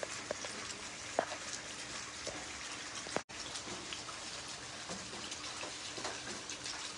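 Steady rain falling on wet concrete pavement: an even hiss of patter with scattered drips. The sound drops out for an instant about three seconds in.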